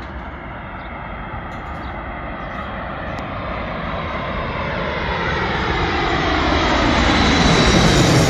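Norwegian Boeing 737 jet airliner on final approach, its twin turbofan engines passing low overhead. The engine noise grows steadily louder, and its whine slides down in pitch as the plane comes over near the end.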